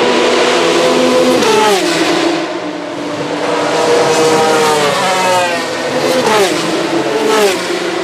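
A string of open-wheel single-seater race cars passing one after another at speed, loud, each engine note falling sharply in pitch as the car goes by.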